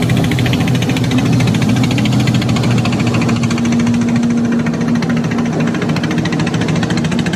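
Boat engine running steadily under way, a loud, fast, even buzz with a low hum.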